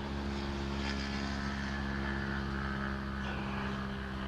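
A small propeller motor, most likely a drone, droning at a steady pitch and fading away near the end.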